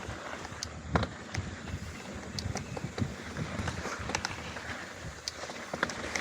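Mountain bike riding over a dirt trail: a steady rush of tyre noise and wind on the microphone, with irregular sharp clicks and rattles from the bike over bumps, the loudest about a second in.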